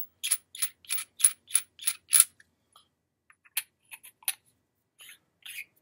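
Sharp metal clicks as the threaded metal sections of a lightsaber hilt are screwed together by hand. They come about three a second for the first two seconds, then a few scattered ones.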